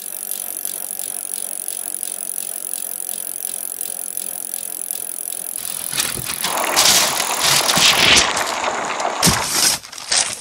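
Toy truck's plastic wheels rolling across a wooden floor, pulling a loaded wooden board, with a steady faint rattle. From about six seconds in, loud rustling of cloth rubbing against the microphone.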